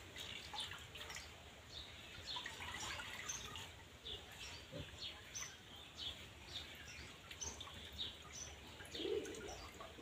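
Faint drips and trickles of liquid falling into a basin of water as a cloth bundle of cow dung is squeezed out to extract its juice for Beejamrit. A dove starts cooing near the end.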